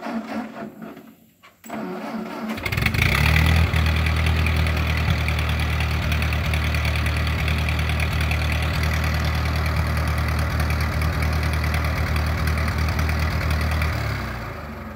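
1952 Ford tractor's four-cylinder engine starting up about two and a half seconds in and running steadily, then shutting off near the end.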